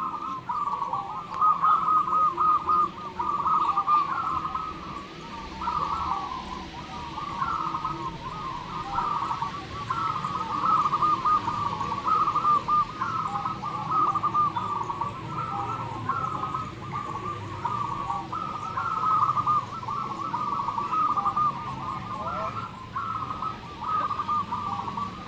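Many zebra doves (perkutut) cooing at once, their rhythmic phrases of repeated notes overlapping into a continuous chorus.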